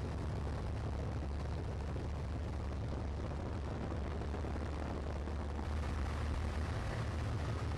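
Cessna 182 light aircraft's piston engine and propeller droning steadily, heard from inside the cabin, with a deep low hum under a rushing noise. It gets slightly louder about six seconds in.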